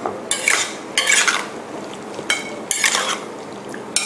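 Metal tongs stirring and scraping marinated chicken pieces around a stainless-steel bowl: about five wet scraping strokes, with the bowl ringing briefly on a couple of them.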